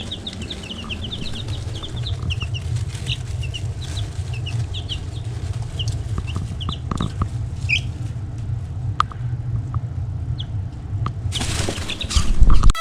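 Baby chicks peeping: many short, high chirps in quick succession over a steady low rumble, with a loud rustling noise near the end.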